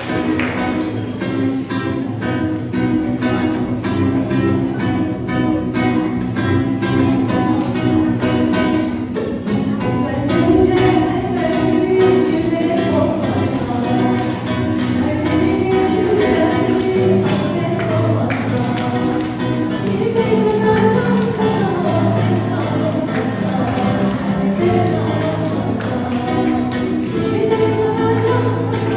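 Music: a song with singing over instrumental accompaniment with a steady beat.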